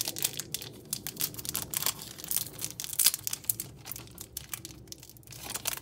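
Foil wrapper of a Pokémon trading-card booster pack crinkling and tearing as it is worked open by hand, a dense run of sharp crackles and rips.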